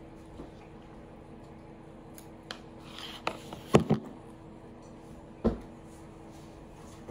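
Clicks and knocks of small objects being handled: a cluster about two and a half to four seconds in, the loudest just before four seconds, and a single knock about five and a half seconds in, over a steady low hum.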